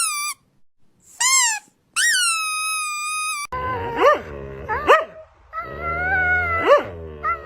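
Several short, high-pitched squeaks, each bending up then down in pitch, played as a sound to provoke a dog. About halfway in a dog answers with a run of whining howls and yelps, its pitch sweeping upward on each call.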